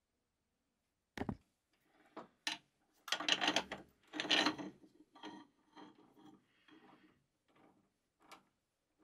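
A steel rod being fitted into a metal lathe's chuck while the chuck key is worked: metal knocking, clicking and rasping scrapes. A knock comes about a second in, then two clicks and two longer scrapes around the middle, then fainter scrapes and a single click near the end.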